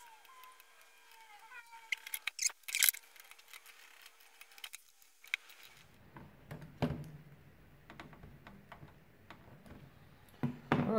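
Small clicks and taps of hand tools and components on a circuit board during soldering work, loudest as a quick cluster of sharp clicks about two to three seconds in. In the second half, the board being handled and shifted, with light knocks and rubbing.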